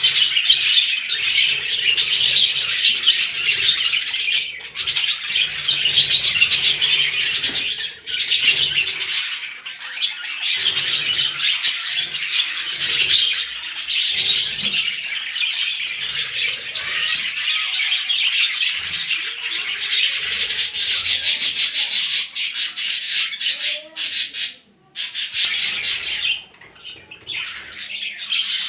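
A flock of budgerigars chattering: dense, continuous high warbling and chirps, dropping away briefly near the end before resuming.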